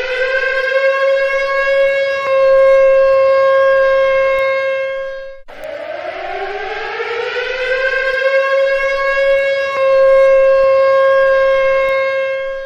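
Civil defense siren sounding an attack warning in repeated cycles: the tone climbs in pitch, holds steady for a few seconds, then cuts off abruptly, about five seconds in and again near the end, climbing anew in between.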